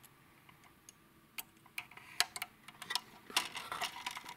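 Small sharp clicks and light scraping from hands handling a circuit board, an electrolytic capacitor and a plastic light-fixture housing. The clicks are scattered at first and turn into a denser flurry of clicks and scrapes about three seconds in.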